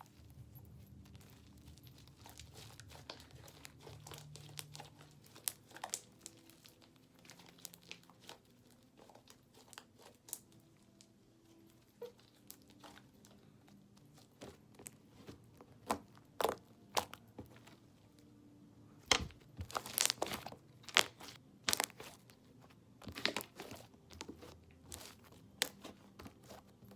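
Homemade slime mixed with shaving cream being squished and stretched by hand, giving crackling clicks and pops. The pops are sparse at first, then come thicker and louder in the second half.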